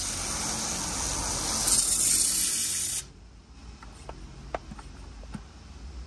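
Hand-pump pressure foam sprayer (SnowMão) discharging a jet of cleaning product onto a fabric car seat: a steady spray hiss that grows louder near two seconds in and cuts off suddenly about halfway through, followed by a few faint clicks.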